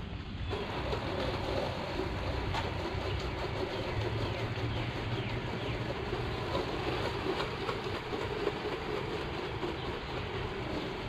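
Soft-wash spray wand of a 12-volt soft-wash system turned on about half a second in. It then gives a steady hiss of spray as the stream is shot up at the roof.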